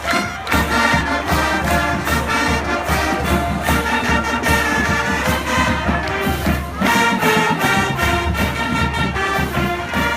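Background music with a steady beat and brass-like melody.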